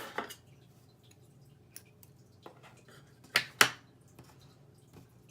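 Scissors snipping copper thread: two sharp clicks about a quarter second apart a little past three seconds in, with a few faint handling ticks before them.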